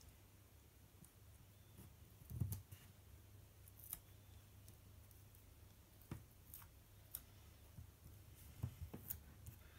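Faint, scattered taps and paper rustles of small paper stickers being peeled and pressed onto a planner page, over a low steady hum; a soft knock about two and a half seconds in is the loudest.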